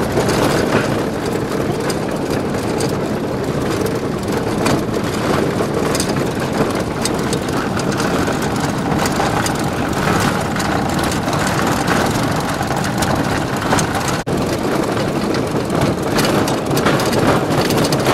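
A van towing a trailer, driving steadily over a rough gravel road: engine, tyre and wind noise, with scattered small rattles and clicks.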